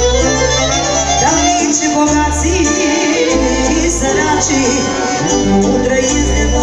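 Live Romanian folk band music, a saxophone playing the melody over a steady bass line.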